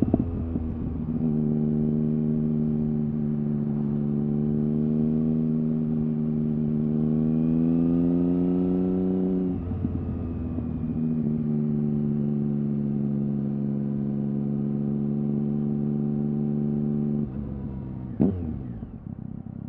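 Triumph Speed Triple R's 1050 cc inline-three engine running through an Arrow exhaust with the dB-killer baffle removed, heard on board under light throttle. The note is steady, rising slowly in pitch for several seconds, breaks briefly about nine seconds in, and then holds steady again. Near the end the throttle closes, the note drops, and there is one sharp crack.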